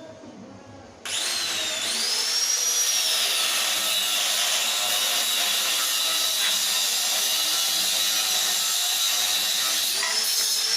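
An electric power tool in a metalworking shop starts abruptly about a second in. Its high motor whine rises, then sinks in pitch as it bears down on the work, running steadily over a harsh hiss. Near the end it lifts off briefly and the whine climbs again.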